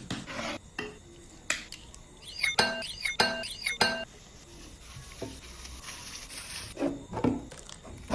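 Kitchenware clinking and knocking: utensils striking bowls and dishes in scattered sharp hits, with a few ringing tones a little before the middle.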